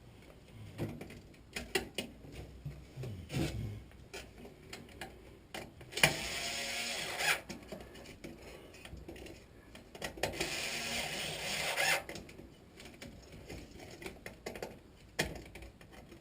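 Hand work on a furnace control board's wiring: scattered small clicks and knocks, with two longer rustling, scraping stretches of a second or two, one about six seconds in and one about ten seconds in.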